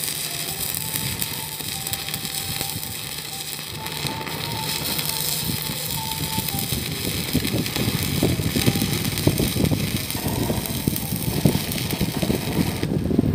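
Stick (SMAW) arc welding: the electrode's arc crackling and sizzling steadily, growing louder and harsher about halfway through.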